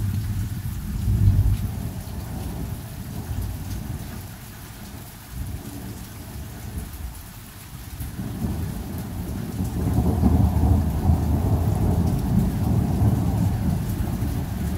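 Thunder rumbling over steady rain: a short low rumble about a second in, then a longer rolling rumble that builds from about eight seconds and carries on.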